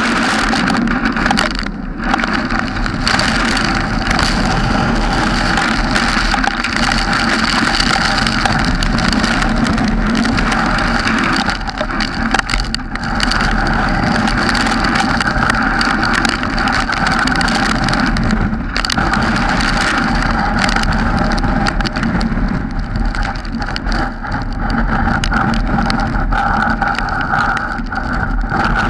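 Strong wind and rain rushing over the camera's microphone, a loud steady noise that dips briefly a few times.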